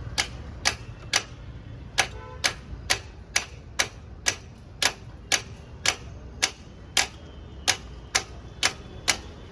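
Sharp metallic clicks about twice a second, each with a brief high ring, over a low background hum. The beat pauses twice for a moment.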